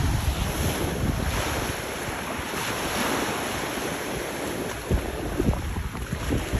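Gentle ocean surf washing up on a sand beach, with wind rumbling on the microphone and a few low thumps near the end.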